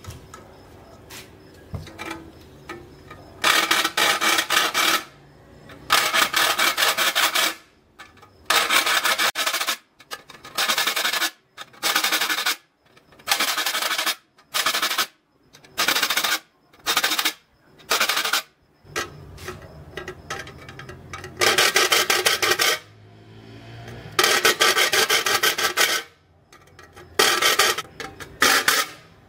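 A metal file rasping across the teeth of a small hand saw, sharpening them: a run of separate strokes, each about a second long with short pauses between, the strokes coming quicker and shorter in the middle.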